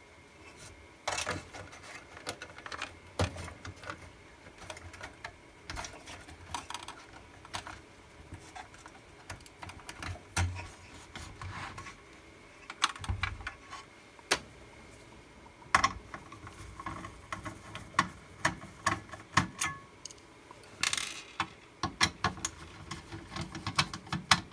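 Irregular small clicks, taps and light metal knocks from disassembling a laserdisc player's power supply: ribbon cable connectors pulled from the board and screws backed out of the metal chassis with a screwdriver.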